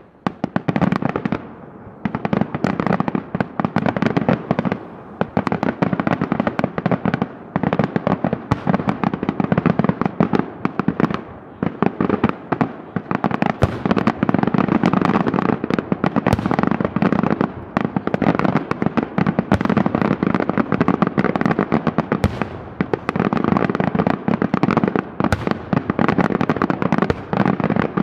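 Daylight aerial fireworks display: a dense, almost unbroken barrage of rapid bangs and crackling shell bursts, starting abruptly after a short lull and dipping only briefly a few times.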